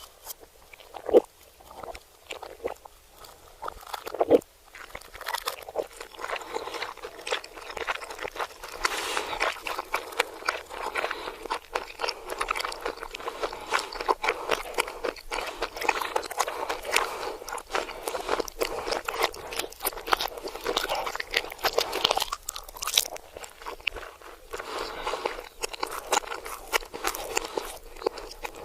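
Close-up crunchy chewing and biting of food, played backwards. A few separate loud bites come in the first few seconds, then steady dense crackling from about five seconds in.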